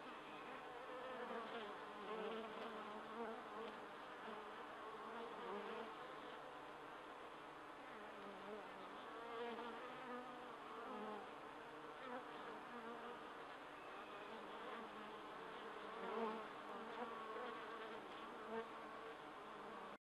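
Many honeybees buzzing on the comb: a soft, steady hum of overlapping wing-beat tones that waver in pitch.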